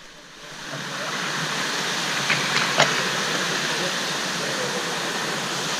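Steady rushing of a river waterfall, fading in over the first second. A few sharp clicks or knocks come between two and three seconds in.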